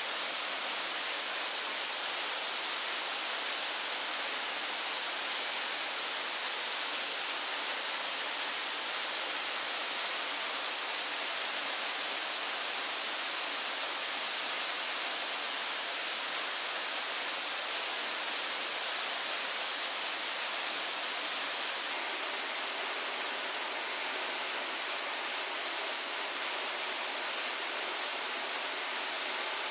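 Steady rushing water, an even hiss strongest in the high end, a little quieter from about 22 seconds in.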